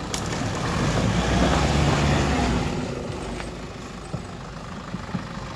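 Nissan Patrol 4x4's engine under throttle as it crawls forward through mud, swelling about half a second in and easing off after about two and a half seconds. A few faint clicks come later.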